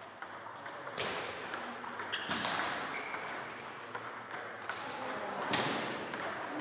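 Table tennis balls clicking off bats and tables: a scatter of sharp pings at irregular intervals.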